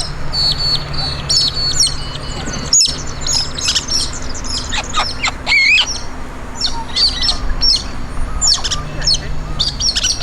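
Several birds chirping and calling over one another, a dense run of short, high chirps and quick up-and-down whistled calls.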